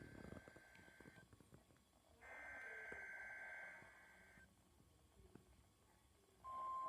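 Midland WR120EZ NOAA weather radio's speaker sending the digital SAME header of an Emergency Alert System weekly test: faint two-tone data bursts, one ending about a second in and another from about two seconds to four and a half. Near the end a single steady warning alarm tone begins.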